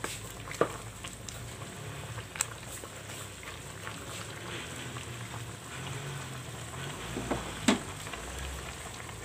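Chicken adobo with potatoes simmering and sizzling in its sauce in a metal pan while a spatula stirs it, with a few sharp knocks of the spatula against the pan, the loudest near the end.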